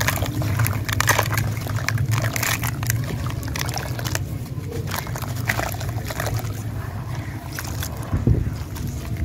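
Hands crumbling a dry sand chunk into powder: gritty crunching and crackling, with a steady low drone underneath. Near the end the hands plunge into a bowl of water, sloshing and squelching.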